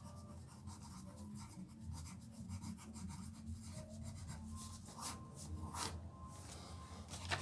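Graphite pencil scratching on paper in quick, short strokes as letters are written out, with a faint low hum underneath.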